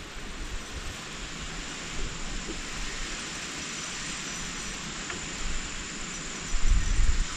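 Steady, even outdoor hiss of open-air wind. Low wind buffeting hits the microphone for the last second or so.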